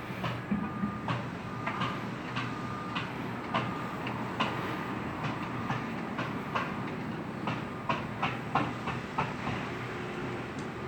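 Construction-site framing work: irregular sharp knocks from the framing crew, and a backup alarm beeping about once a second, over a steady low engine hum.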